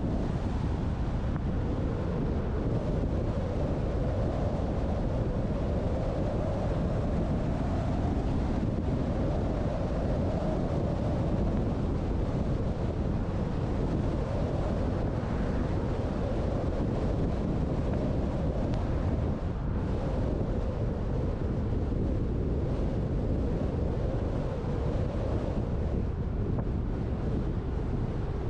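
Steady wind rush on the microphone of a GoPro mounted on the roof of a moving truck, with the truck's road noise underneath.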